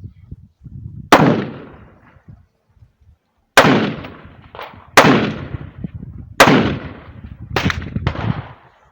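Rifle shots: five loud cracks spaced one to two and a half seconds apart, each trailing off in a rolling echo, with a fainter shot close after the last one.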